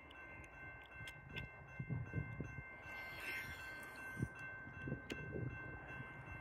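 Faint, steady horn tone from a distant approaching freight train's locomotive, over a soft low rumble with a few dull thumps.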